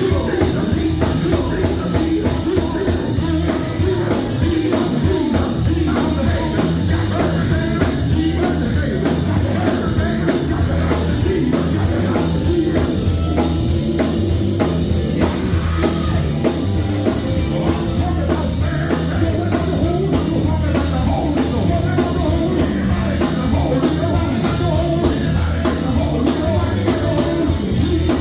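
Live gospel band playing loud and steady with a drum kit, bass and guitar, with singing over it.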